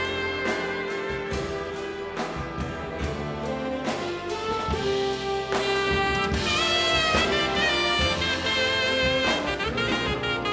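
Big band jazz ensemble playing a swing holiday arrangement: brass and saxophones holding notes over a steady drum beat.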